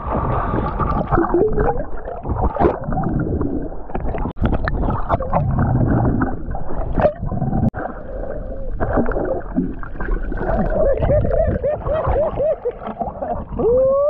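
Muffled gurgling and bubbling as heard underwater, with scattered knocks and a run of warbling, wavering pitched sounds near the end.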